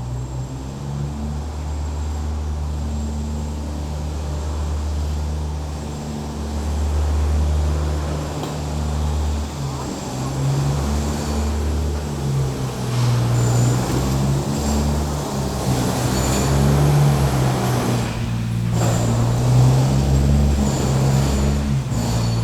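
A large engine running at low speed: a steady low drone that shifts in pitch now and then.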